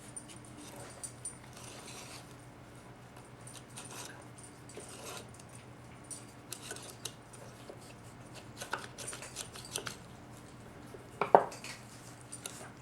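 Parts of a 4L60E transmission oil pump being handled and fitted: scattered light metallic clicks and clinks as the vanes are set into the rotor, with one sharper knock near the end.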